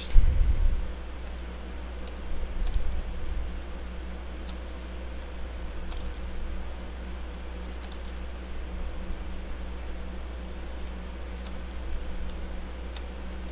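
Computer keyboard keystrokes tapped now and then as hotkeys are pressed, over a steady low hum, with one louder knock just at the start.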